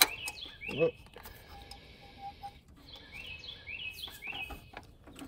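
Small birds chirping: quick runs of short, high chirp notes, one run near the start and another about three seconds in. A sharp click comes right at the start, and a brief louder sound just under a second in.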